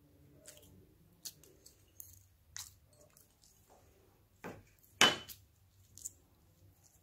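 Glossy slime being pressed, then lifted and stretched by hand, giving scattered wet clicks and pops. The loudest is a sharp pop about five seconds in.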